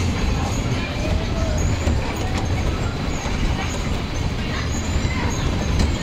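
Caterpillar fairground ride's cars running round their undulating circular track, heard from on board: a steady rumble and rattle.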